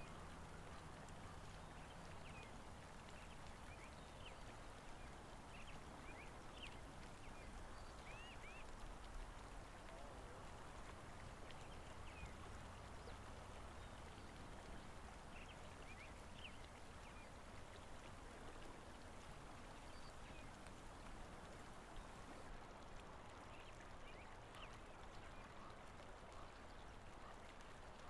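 Faint outdoor ambience: a steady low hiss with short, high chirps from small birds scattered throughout.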